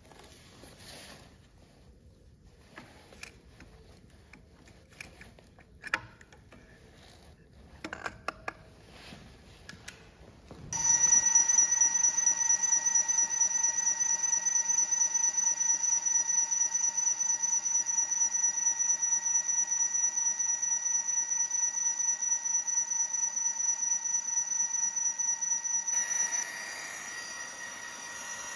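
Line boring bar turning in an excavator bracket's pin bore, its cutting tool boring through weld. A few light clicks and taps come first, then about ten seconds in a loud, steady, high-pitched ringing whine with a fast pulse starts; it becomes softer and changes near the end.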